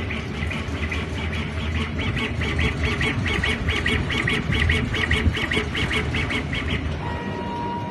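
Laser engraving machine raster-engraving a yoga mat: the head's drive motors buzz in quick, regular bursts, several a second, as it sweeps back and forth. Near the end the bursts stop and a steady whine is left.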